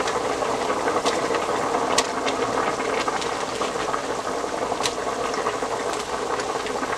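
Pot of meat and crab in broth at a rolling boil: steady bubbling, with a few light pops, one about two seconds in and another near five seconds.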